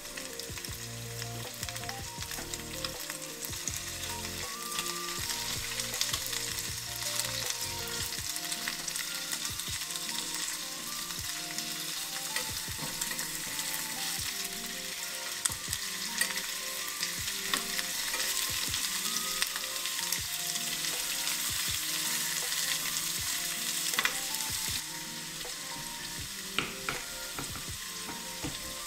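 Pork belly and daikon sizzling as they are sautéed in a small enamel pot, stirred with metal tongs that click against the pot now and then. The sizzling stops near the end, giving way to a few light clicks and scrapes.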